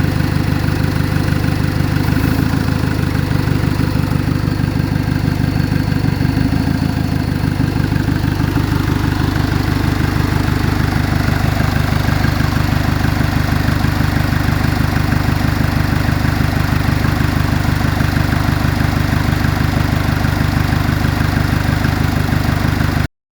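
2012 Chevrolet engine idling steadily, with a fast, even pulsing. The sound cuts off abruptly near the end.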